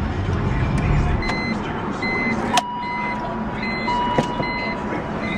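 The 2002 BMW M3's S54 straight-six engine is switched off about a second in, and its low running rumble dies away. A click follows, and a repeating electronic warning chime from the car beeps about once every 0.8 s.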